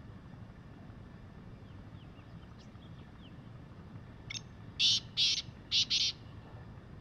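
Black francolin calling: a short note about four seconds in, then a loud rasping phrase of four notes, the last two close together.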